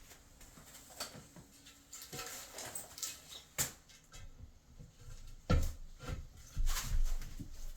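Wall tiles being handled and set into place: scattered light clicks and scrapes, with dull thumps about five and a half seconds in and again near the end.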